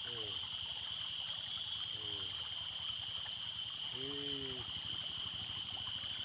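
Steady rush of flowing stream water under a continuous high-pitched insect drone, with a few short vocal sounds from a man: at the start, about two seconds in, and a longer one about four seconds in.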